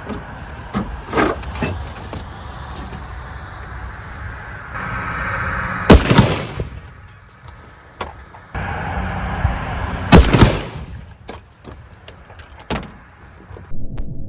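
A .50 calibre sniper rifle fired twice, about four seconds apart, each shot a loud crack with a short echo after it.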